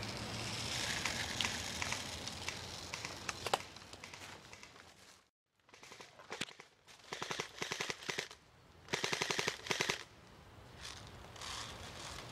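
Airsoft guns firing in the woods: a few single shots, then several bursts of rapid full-auto fire in the second half.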